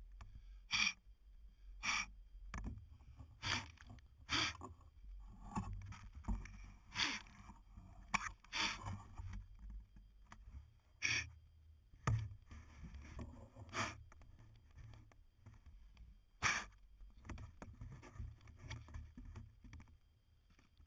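Footsteps crunching in snow, about a dozen irregular steps one to three seconds apart, with the rustle and knock of a snow-caked drone being carried.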